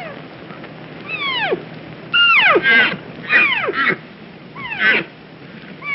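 Deer calling: about half a dozen high calls, each sliding sharply down in pitch, some coming in quick pairs.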